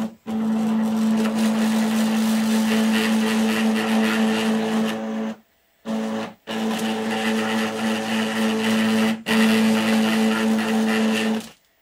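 Stepper motors driving the joints of a 3D-printed robot arm, a steady pitched hum that stops and starts again several times as the arm moves. Among them is the heavy NEMA 23 stepper, which is able to lift the arm.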